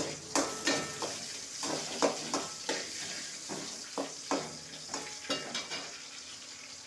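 Chopped onions and curry leaves sizzling in hot oil in a metal kadai, with a metal spoon scraping and clinking against the pan about fifteen times as they are stirred.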